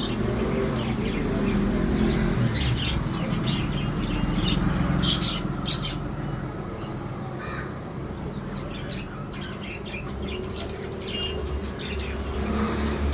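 Birds calling in short, high, irregular calls, busiest in the first half, over a steady low rumble.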